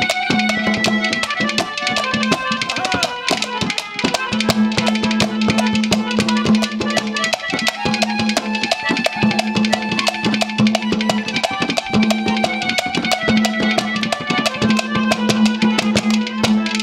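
Instrumental break of live Haryanvi ragni accompaniment: rapid, dense hand-drum strokes over held melodic notes and a steady low note.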